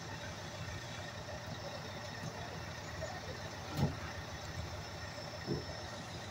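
Fire engine idling steadily, with a sharp knock about four seconds in and a lighter one under two seconds later.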